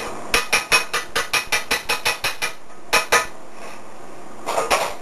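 Metal spoon clinking against a skillet in a quick, even run of about fifteen strikes, roughly six a second, while stirring flour into pan drippings for gravy; two more strikes follow about a second later, and a short cluster comes near the end.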